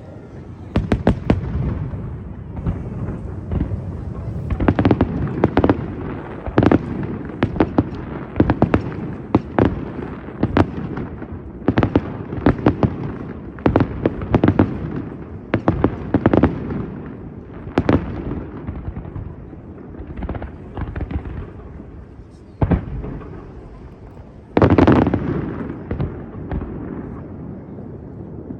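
Aerial fireworks bursting one after another, sharp bangs every second or so over a continuous low rumble of echoing booms, with a dense run of louder bursts near the end.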